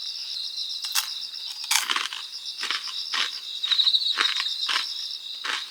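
Crisp crunching bites and chewing of fried chicken skin, about seven separate crunches spread through, over crickets chirping steadily.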